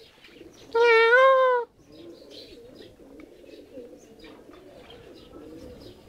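Doves cooing softly over and over, broken about a second in by one loud, drawn-out animal call that lasts about a second.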